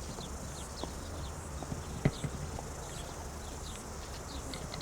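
Outdoor ambience: a steady low hum, short falling high chirps at roughly two a second, and a few scattered knocks, the loudest about two seconds in.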